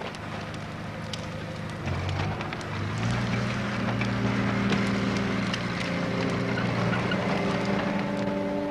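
Bonfire of broken timber crackling and popping, over the steady drone of a tracked loader's diesel engine, which grows louder about three seconds in.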